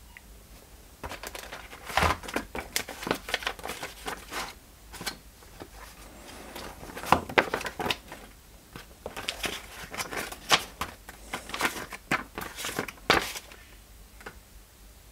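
Irregular crinkling and clicking handling noise, a dense run of short crackles starting about a second in and dying away near the end.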